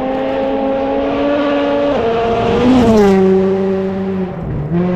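Rally car engine under hard throttle, its note climbing as it approaches, then passing close about three seconds in, with the pitch dropping as it goes by and moves away.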